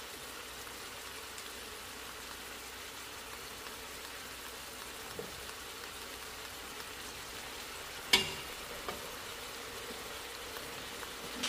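Oxtails and seasonings sizzling steadily in a pot, with a single sharp tap about eight seconds in.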